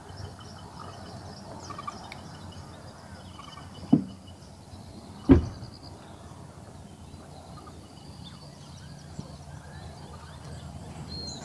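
Two dull thumps about a second and a half apart, over a steady low background with faint, high bird chirps.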